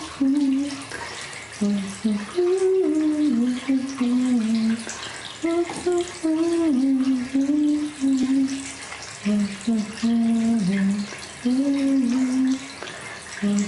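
A voice humming a slow tune in phrases of a second or two, over water running steadily from a tap.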